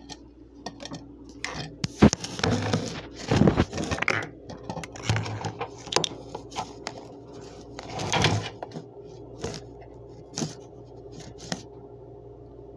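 Cake batter being stirred in a mixing vessel: irregular scraping and knocking of the utensil against the container, with a sharp knock about two seconds in and the longest stretch of scraping just after it.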